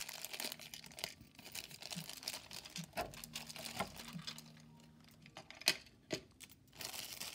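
Small clear plastic bag crinkling and rustling as fingers work plastic parts out of it, then a few sharp clicks near the end as a clear plastic stand is set down.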